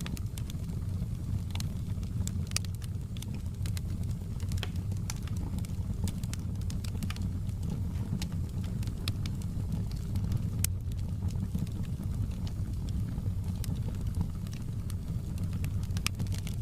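Fire burning in a fireplace: a steady low rumble of flames with frequent irregular crackles and sharp pops.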